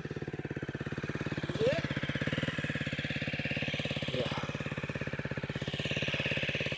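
Dirt bike engine running steadily at idle, with an even firing pulse. A brief higher squeak comes about one and a half seconds in.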